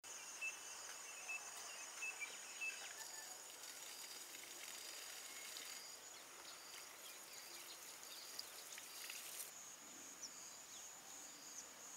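Faint rural ambience: insects trilling steadily at a high pitch, with a bird chirping several times in the first three seconds and a few short bird calls later.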